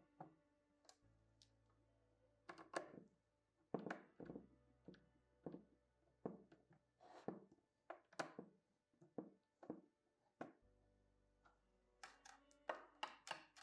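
Irregular light clicks, taps and knocks of a small screwdriver and wire ends being worked into the screw terminals of an alarm panel and communicator board, with faint background music beneath.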